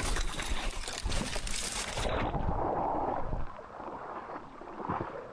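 Splashing, rushing water: a loud hiss for about the first two seconds, then a lower rush that dies down about three and a half seconds in.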